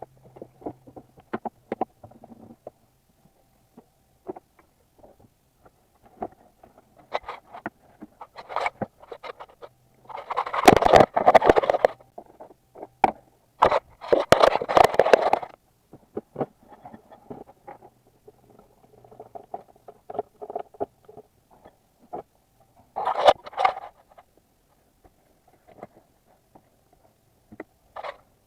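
Scattered clicks and knocks of hand tools and engine parts being handled, with two longer spells of rapid clicking about ten and fourteen seconds in.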